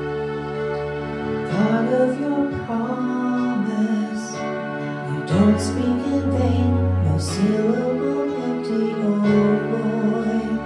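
A woman singing to her own accompaniment on a Roland RD-700 digital stage piano. Sustained keyboard chords play throughout; her voice comes in about a second and a half in and stops shortly before the end, leaving the chords ringing on.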